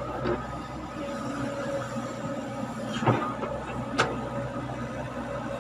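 Caterpillar hydraulic excavator's diesel engine running steadily under load, with a faint hydraulic whine, as the machine swings back from the truck and lowers its arm into the pit. Two sharp metal clanks come about three and four seconds in.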